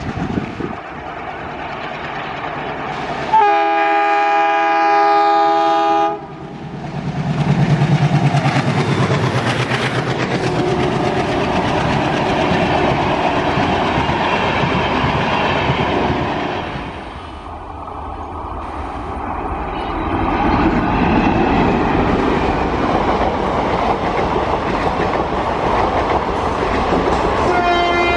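An Indian Railways diesel locomotive's multi-tone horn blows for about three seconds, then the train comes by with a rising engine hum and coaches clattering over the rail joints. Later a passenger train's coaches run past with steady clickety-clack, and another horn begins near the end.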